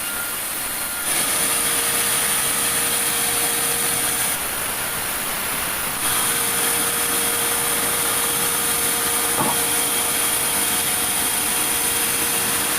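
Sawmill saw running and cutting through a large meranti log: a steady dense noise with a constant high whine, changing briefly about a second in and again between about four and six seconds.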